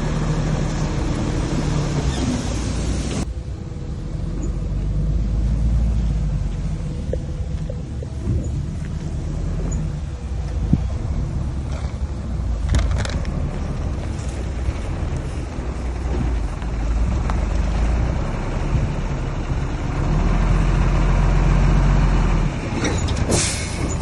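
Heavy diesel earthmoving machinery running, a low engine drone that rises and falls, with a few clanks and a short sharp hiss near the end.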